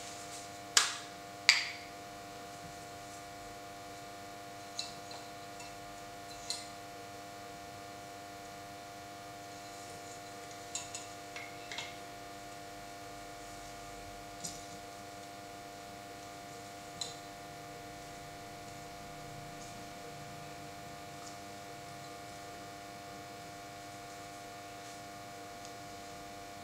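Steady electrical hum under a few sharp clicks and taps from handling a gas canister. The two loudest clicks come about a second in, as its plastic cap comes off, and fainter taps follow as it is fitted to a stove adapter.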